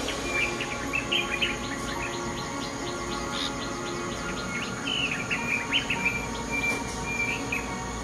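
Bulbuls chirping in short clusters of high chirps, one about a second in and another from about five to seven seconds in, with a faint rapid ticking between them.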